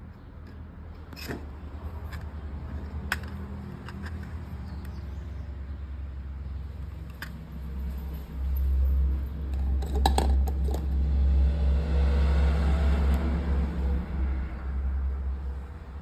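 A few sharp clicks and jangles of keys being handled, then a garage door opener's motor running with a steady low rumble for about seven seconds from about eight seconds in.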